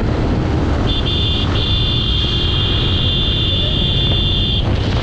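Motorcycle riding along with a steady low engine and wind rumble. From about a second in, a high steady tone sounds for nearly four seconds and then cuts off suddenly.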